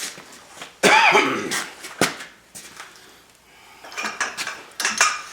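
Metal tools and parts clinking and knocking: a sharp knock about two seconds in and a quick run of clinks near the end. A short throaty sound comes about a second in.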